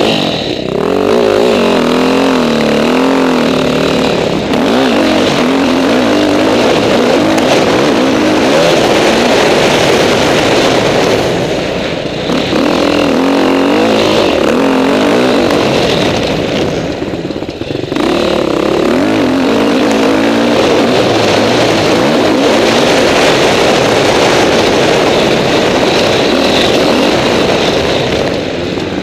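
KTM 450 SX-F single-cylinder four-stroke motocross engine heard close up from onboard, revving hard and shifting, its pitch climbing and falling again and again, over a constant rush of wind and dirt noise. Twice the throttle is briefly shut off and the engine drops away before pulling again.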